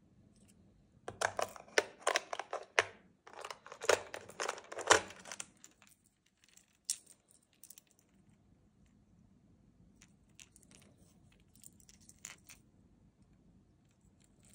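Hard plastic fishing lures and their treble hooks clattering against a plastic tackle box as they are handled: two bursts of rapid clicking and rattling in the first half, then scattered light clicks.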